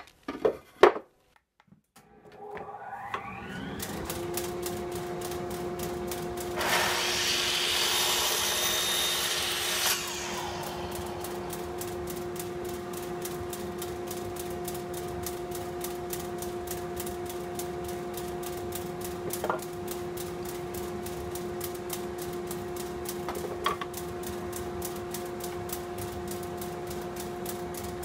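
A few light knocks of wood being handled, then a motor spins up with a rising whine and settles into a steady hum. About seven seconds in, a miter saw blade cuts through a small birch block for about three seconds. The motor keeps humming afterwards, with a couple of faint clicks.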